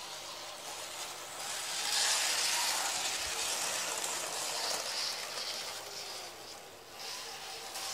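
Tri-ang Hornby Blue Pullman model train running on old sectional track, with the whirr of its small electric motor and the rattle of its wheels on the rails. The noise swells as the train passes close by, about a second and a half in, stays up for several seconds and dips near the end.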